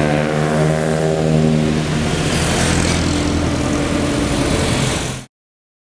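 Engine of a vintage car passing close by, its note falling slightly as it goes past, over the noise of street traffic. The sound cuts off suddenly about five seconds in.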